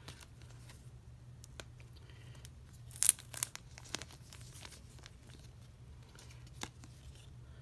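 Plastic photocard packaging crinkling as it is handled, with a few sharp crackles, the loudest about three seconds in.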